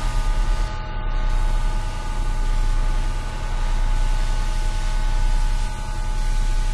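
Electronic noise drone: dense hiss over a heavy low hum, with several steady high tones held throughout. The loudness swells and ebbs slowly, and the highest hiss cuts out briefly about a second in.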